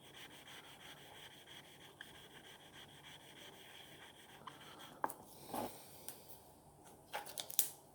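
Stainless steel broadhead blade being stroked along its bevel on 2000-grit wet and dry sandpaper: a faint, steady rubbing, with a few short scrapes and clicks in the last three seconds.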